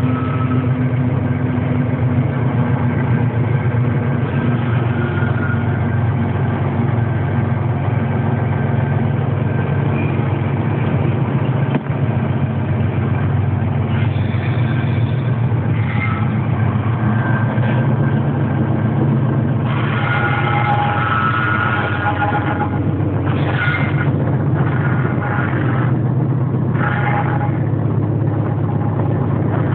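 Diesel locomotive engine running steadily, heard from inside the cab as the train moves. Higher-pitched squealing tones come and go in the second half.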